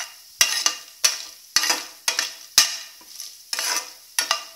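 A utensil stirring and scraping an aluminium pan in sharp strokes about twice a second, over a soft sizzle of cashew nuts, chana dal, urad dal and spices frying in coconut oil.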